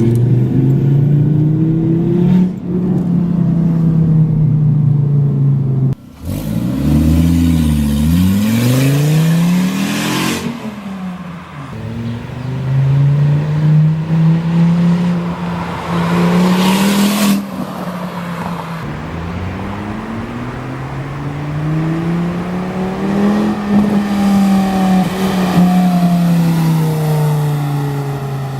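Turbocharged inline-five engine of a Volvo S40 T5 running loud through an exhaust leak at the flex pipe, its pitch climbing and dropping several times as the car accelerates and shifts. Two brief loud rushes of noise stand out, one about a third of the way in and one a little past halfway.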